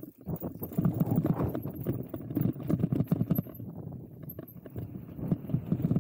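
E-mountain bike riding fast down a rough trail: a quick, uneven run of knocks and rattles from the tyres and frame over bumps. It eases briefly after about three and a half seconds, then picks up again.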